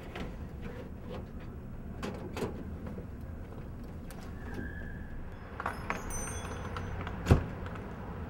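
Door handling and a jingle of keys over a low steady hum: scattered clicks and knocks, a metallic jingle about six seconds in, then one loud door bang about seven seconds in.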